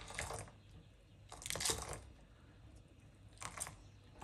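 Milk tea ladled up and poured back into the pot, splashing in three short bursts with quieter gaps between.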